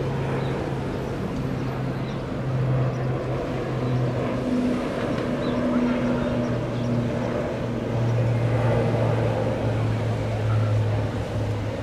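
ATR 72-500 turboprop climbing out after takeoff: the propellers of its two Pratt & Whitney PW127 engines give a steady low droning hum that swells and fades slightly, over a constant rush of background noise.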